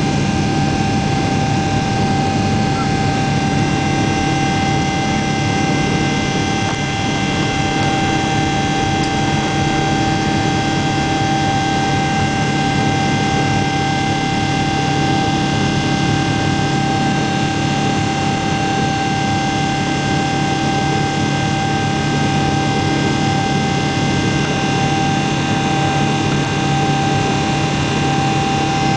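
Boeing 777-300 jet engines running at steady high power, a constant rushing noise with several steady whining tones on top, heard from inside the cabin.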